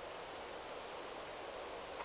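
Steady wind rustling through forest trees, an even hiss with no birdsong standing out.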